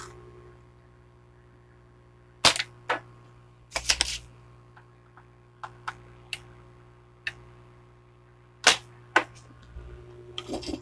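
Spring-loaded desoldering pump snapping as it sucks solder off the leads of a failed filter capacitor on a CRT TV power-supply board: a few sharp snaps, the loudest about two and a half, four and nine seconds in, with fainter clicks between.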